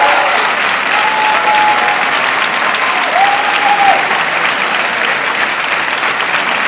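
A theatre audience and the people on stage applauding steadily, a dense clatter of many hands clapping. Two short held tones sound over the clapping, about one second and about three seconds in.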